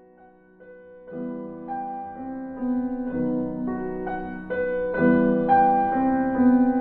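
Gentle piano music: a faint held note, then a melody of single notes entering about a second in and growing fuller and louder.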